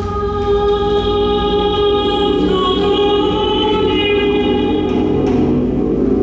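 Music of long, steadily held chord tones with a choir-like, sung quality, a few notes shifting slightly partway through.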